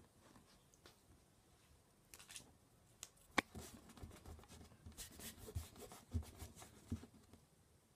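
Faint handling noise on a wooden table: a sharp click about three and a half seconds in, then a string of soft knocks and rubbing sounds that stop about a second before the end.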